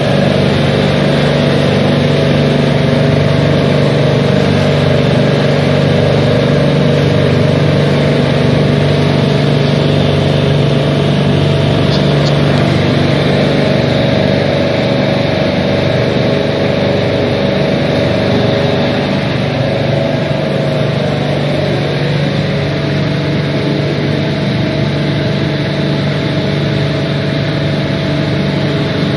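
Refrigeration compressor unit of a refrigerated truck's cooling system running, a loud, steady mechanical hum that does not change.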